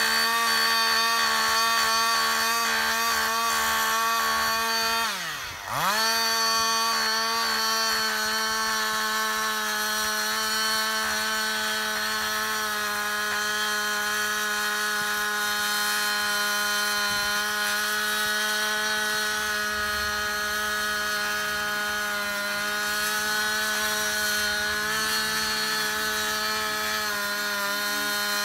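Chainsaw running at full throttle while cutting into the trunk of a dead tree. About five seconds in the revs drop briefly as the throttle is let off, then pick up again and hold steady through the cut.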